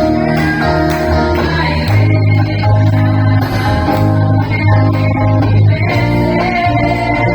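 Music from a gospel song: guitar over sustained bass notes that change every second or two, with little singing.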